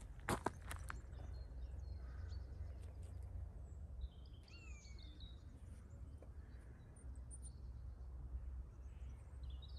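Faint outdoor ambience: a steady low rumble with small birds chirping now and then, one short falling call about halfway through. Two or three quick knocks in the first second.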